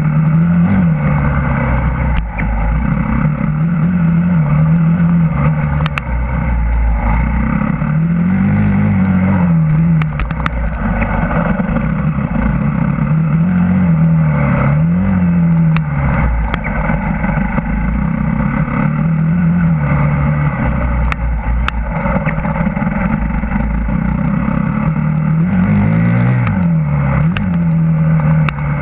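Husqvarna TE 250 dirt bike engine under way, its revs rising and falling again and again as the throttle is worked. Heavy wind rumble on the microphone and a few sharp clicks run through it.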